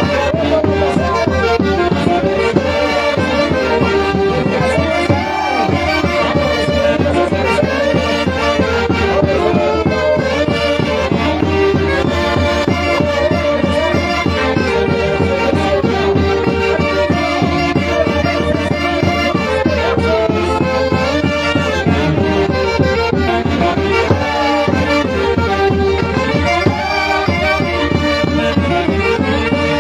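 Andean orquesta típica playing santiago festival music: a wind and string melody over a steady drum beat.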